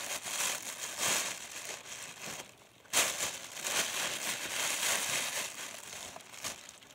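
Thin white plastic bag crinkling and rustling as it is handled and twisted, in irregular bursts with a short lull about halfway.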